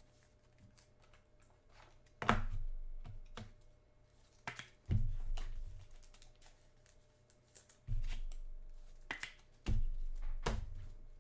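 Scattered handling noise: about half a dozen separate knocks and clicks, some with a dull thump, spaced a second or more apart.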